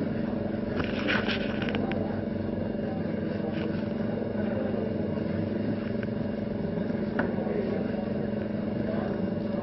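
A small electric motor hums steadily while shampoo foam is brushed in circles into a velvet chair seat. There are a few scratchy rubbing clicks about a second in.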